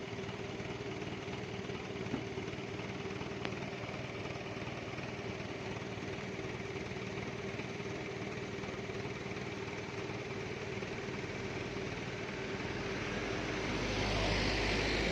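A vehicle engine idling steadily, with a couple of faint clicks early on. Near the end a louder vehicle comes closer, its deeper rumble and road noise building.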